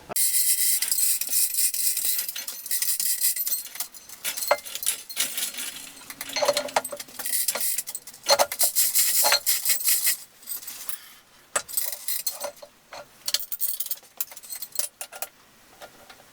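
Metal clinking and jangling: a dense rattle for the first several seconds, then scattered separate clicks and clinks.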